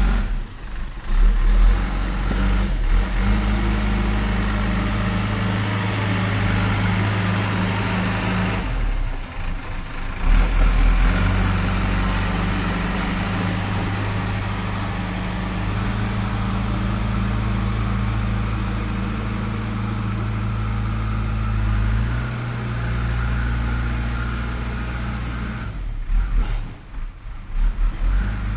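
JCB 3DX backhoe loader's diesel engine running as the machine works, its engine speed stepping up and down several times. The sound dips briefly about nine seconds in and again near the end.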